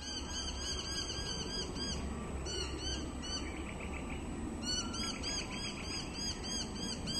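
Laughing kookaburra calling: rapid, evenly repeated arched notes, about five a second, breaking into a different run of notes in the middle before the rapid rhythm resumes.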